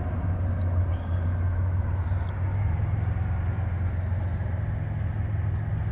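Diesel locomotive engine running with a steady low rumble as the train creeps along at walking pace.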